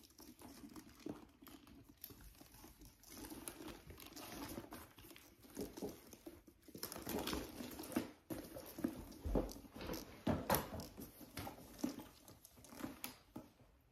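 Soft rustling and light knocks of a leather handbag and its shoulder strap being handled, irregular and continual.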